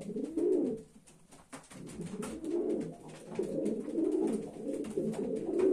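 Homing pigeons cooing: low, warbling coos in several bouts, with a short lull about a second in.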